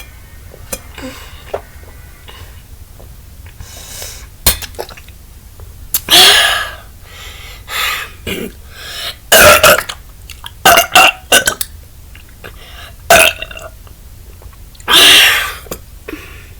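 A person burping repeatedly after chugging a 12-ounce bottle: a run of loud burps, some long and drawn out, starting about six seconds in and ending with a long one near the end.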